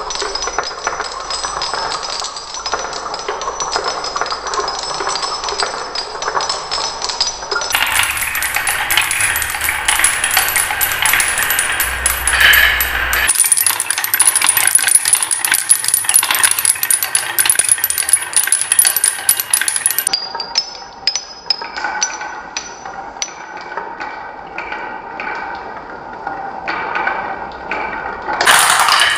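Glass marbles and steel balls rolling and clattering down a wooden marble run: a dense stream of rapid clicks and knocks as they bounce through a board of wooden pegs and roll along a winding groove cut into a wooden plank. The sound changes abruptly several times, about 8, 13 and 20 seconds in.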